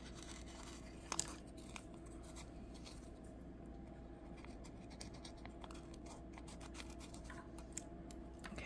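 Small scissors snipping through clear PET sticker tape: many faint, quick snips and scrapes, with a sharper click about a second in.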